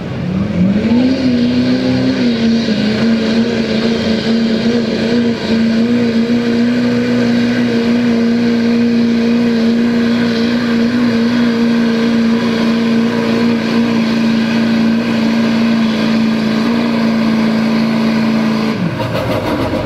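Chevrolet Silverado's Duramax V8 turbodiesel at full throttle, pulling a weighted sled. It revs up in the first second, holds a steady high pitch under load for most of the run, and drops off near the end as the throttle is let off.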